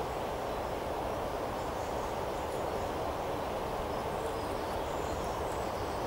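Steady outdoor rushing noise at an even level, with a few faint high bird chirps over it.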